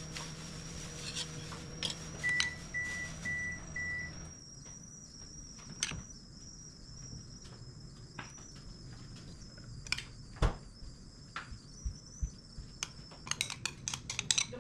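A kitchen appliance hums and gives four short electronic beeps, then its hum stops, as at the end of a cooking cycle. Afterwards come scattered light clicks and knocks of kitchenware, with one louder knock and a quick run of clicks near the end.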